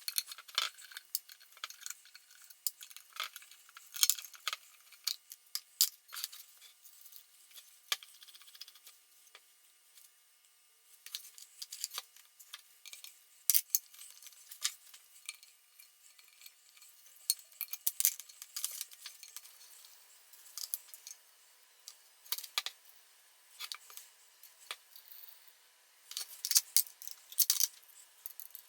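Hand tools and small metal parts clinking and clicking on and off as a machine's drive-shaft bearing assembly is taken apart to reach its oil seal, with a quieter spell about a third of the way in.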